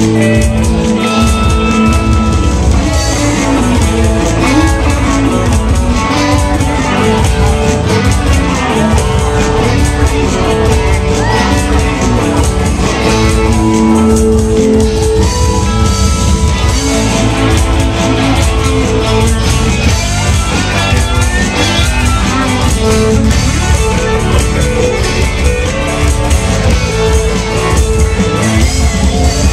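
A live rock band playing loudly, with guitar lines carrying sustained and bending notes over bass and drum kit.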